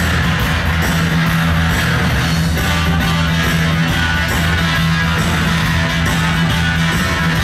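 Rock and roll music with guitar, played loud and steady over a sonido's stacks of loudspeakers.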